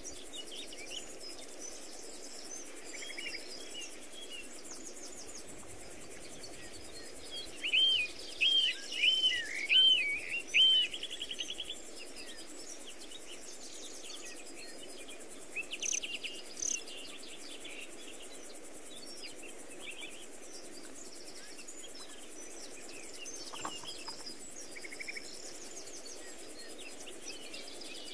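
Wild birds singing and calling, with a run of five or so loud, quick, curving notes about eight to eleven seconds in and scattered high chirps and trills elsewhere, over a steady low background hiss.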